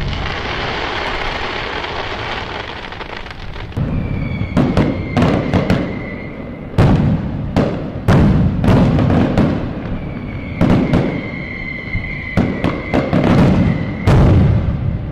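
Fireworks going off: a rapid series of sharp bangs over continuous crackling, with high whistling tones from whistling fireworks twice, about four seconds in and again about ten seconds in.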